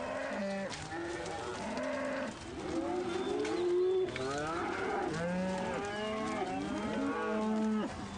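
A herd of Cape buffalo calling: many overlapping low moos, each rising and falling in pitch.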